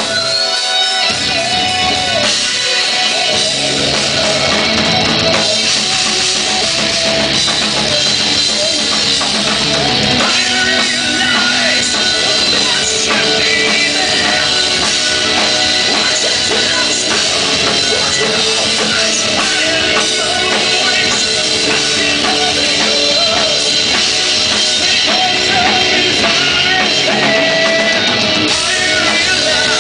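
Heavy metal band playing live, with a drum kit driving a loud, steady mix.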